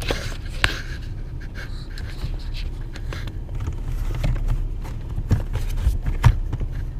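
A person breathing hard while working cramped under a car dashboard, with a few sharp clicks and knocks from handling the plastic trim and wiring, over a steady low rumble.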